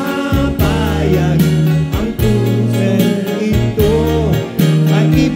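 Live band music: a guitar-backed pop song with singing.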